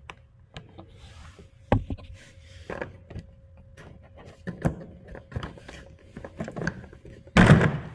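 Plastic latches and an access panel on a Champion 5500 inverter generator being unclipped and handled: scattered clicks and knocks, a sharp knock about two seconds in, and a louder clatter near the end.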